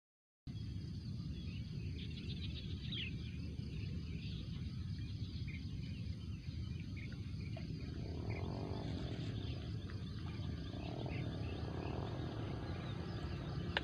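Steady low rumbling outdoor noise, with faint short chirps higher up, starting abruptly after a moment of silence.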